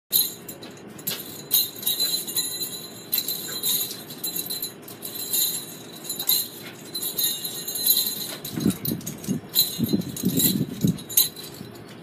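Homemade jingle-bell begleri being slung: the small jingle bells on the ends of the cord jingle and clink in quick, irregular shakes, with some lower muffled sounds in the last few seconds.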